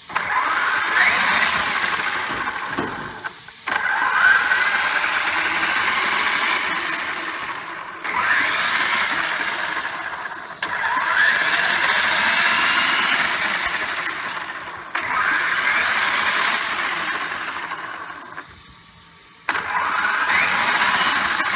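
Traxxas X-Maxx RC truck's brushless electric drivetrain whining and squealing as it is throttled up in about six bursts, each opening with a rising whine. The owner suspects the squeal comes from the front and rear differentials.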